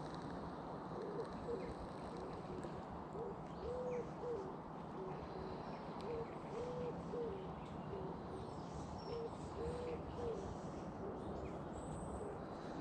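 A pigeon cooing, a run of soft low coos in short repeated phrases, with faint high chirps from other birds.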